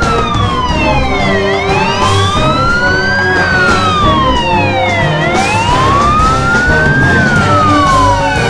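Fire engine siren wailing, its pitch slowly rising and falling about every four seconds, over background music.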